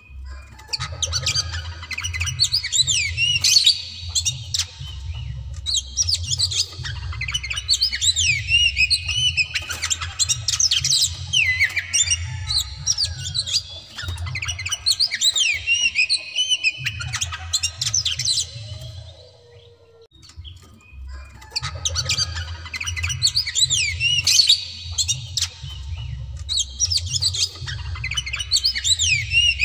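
Male oriental magpie-robin (white-breasted kacer) singing loud, fast, insistent song: rapid runs of whistled, gliding notes mixed with harsher squawks. The song comes in long bursts, with a short lull about two-thirds of the way through.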